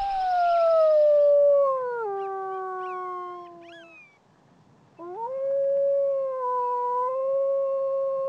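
Wolf howling twice. The first long howl rises, falls and holds at a lower pitch, fading out about four seconds in. A second long, fairly level howl starts about a second later.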